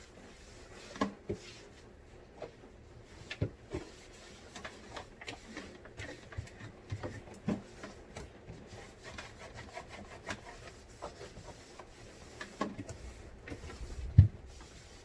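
Scrubbing and rubbing on refrigerator parts during cleaning, broken by irregular knocks and clatters of things being handled. There is a louder thump near the end.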